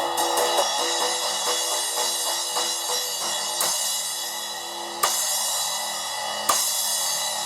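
Zildjian A 10-inch Fast Splash cymbal struck with a run of quick light strokes, about three a second, then three harder single hits about a second and a half apart, each left to ring with a bright shimmer.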